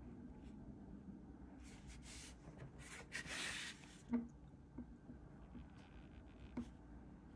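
Faint scratching of a black brush-tip marker inking on paper. A louder rustling hiss about two to four seconds in as the paper sheet slides across the desk, and a few soft ticks near the end.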